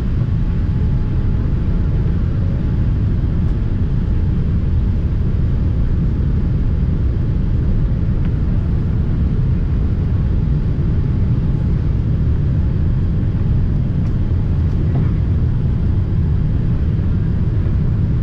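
Steady low rumble of a Boeing 787-8 airliner's engines and airflow heard from inside the passenger cabin on final approach.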